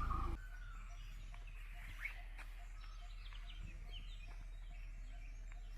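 Faint, scattered chirps of small birds over a quiet background. The louder sound before it cuts off suddenly just after the start.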